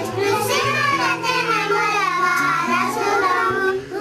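Children singing together, with a steady low accompaniment that moves from note to note.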